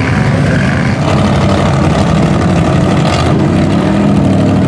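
Loud, steady engine noise from off-road trucks running.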